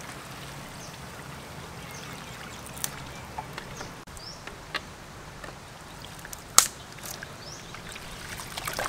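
Wet noodles lifted by hand from a metal basin into a plastic basket, water dripping and trickling back into the basin, with scattered small clicks. A sharp click about two-thirds of the way through is the loudest sound, and short high bird chirps come now and then.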